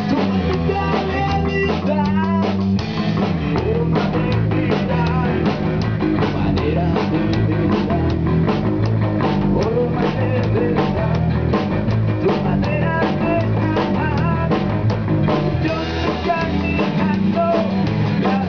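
Rock band playing live, with the drum kit's steady hits prominent throughout.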